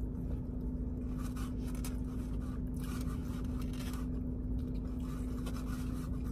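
Scraping and rustling from handling food and its takeout container while eating, in short irregular bursts over a steady low hum.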